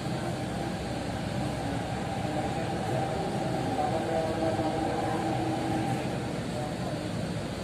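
Delhi Metro train running slowly through an underground station, heard from inside the carriage: a steady rumble of wheels and running gear with a faint humming whine from the motors.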